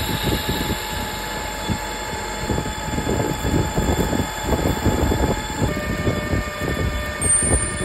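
Metal lathe running while a carbide tool cuts a spinning metal part and then a twist drill in the tailstock chuck bores into its end: a steady machine whine over an uneven, rattling cutting noise. The whine's pitch changes about six seconds in.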